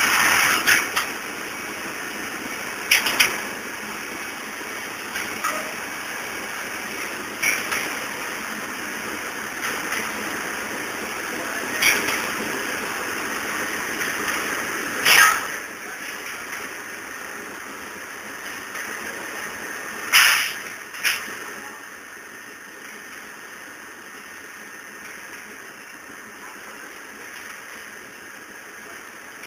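A forklift handling metal racks of hollow clay bricks: a steady hissing rush of machine noise with sharp clanks every few seconds, the loudest two about 15 and 20 seconds in. The rush eases a little in the last third.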